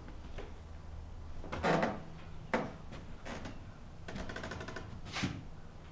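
Footsteps on a wooden floor, about one step a second, with a brief rattle about four seconds in.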